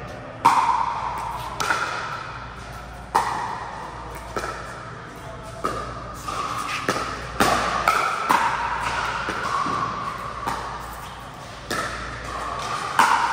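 Pickleball rally: the sharp pop of paddles hitting the plastic ball about once a second, each hit ringing briefly and echoing in a large hall.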